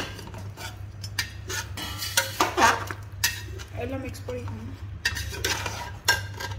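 Metal spoon stirring food in a cooking pot, scraping and clinking against its sides at an irregular pace, over a steady low hum.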